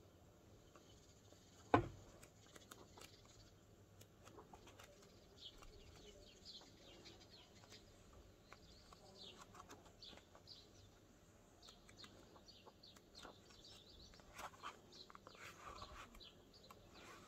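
Faint rustling and flicking of paper as the pages of a hardback book are turned and riffled, with a sharp tap about two seconds in. Short bird chirps sound faintly behind it.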